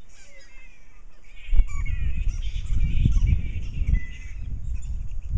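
A roosting flying-fox colony, many bats squabbling at once in short, high, overlapping calls. A knock comes about a second and a half in, followed by a low rumble.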